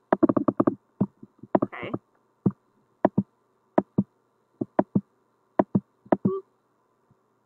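Computer mouse clicks: a quick run of clicks at the start, then single and paired clicks about every half second, as an on-screen sticker is dragged and resized.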